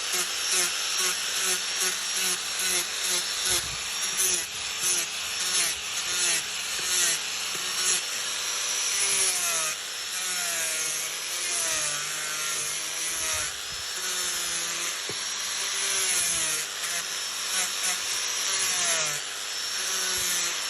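Wood being sawn in regular back-and-forth strokes, about two a second at first, later with squeaks that rise and fall in pitch.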